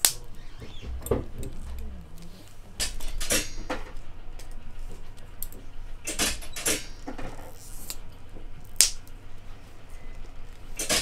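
Metal pin buckles clinking and rattling as they are handled and fitted onto leather belts: scattered small clicks and short jangling clusters, with a single sharper click near the end the loudest.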